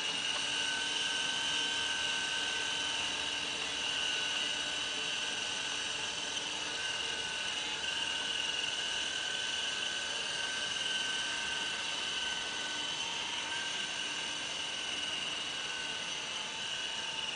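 MD 530 model helicopter in flight: a steady high whine of its motor and rotor, with the level easing slightly toward the end.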